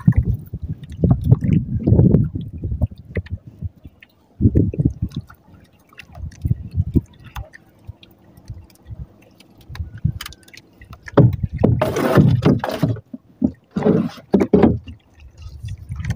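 Water sloshing and lapping against the hull of a wooden outrigger boat in irregular surges, louder and splashier about eleven to fifteen seconds in.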